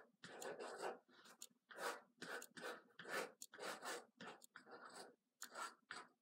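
Pilot FriXion fine-point gel pen writing on a sheet of paper: faint, irregular scratchy pen strokes, several a second with short pauses between.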